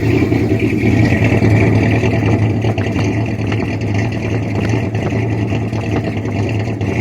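Freshly rebuilt engine of a 1979 Ford F-150 running steadily while still warming up, just after a carburetor adjustment; it sounds pretty good.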